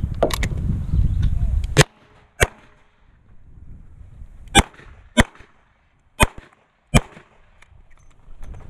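A low rumble on the microphone, then six shots from a Smith & Wesson Model 66 revolver, fired in three pairs about two-thirds of a second apart, emptying its six-shot cylinder.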